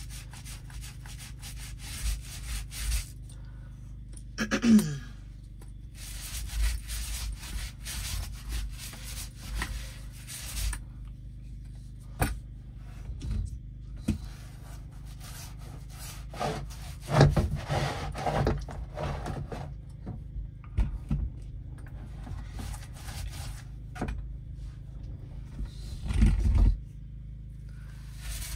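Paint roller rolling fresh paint onto an RV's wall and ceiling panels: repeated rubbing strokes with short pauses between them, and a couple of louder bumps in the second half.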